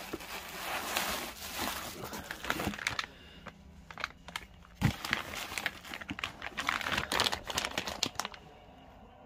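Plastic packaging and bubble wrap crinkling as hands rummage through a box of brake parts and pull out a bagged brake line kit. The crinkling runs in two spells, with a single sharp tap between them, and stops about a second before the end.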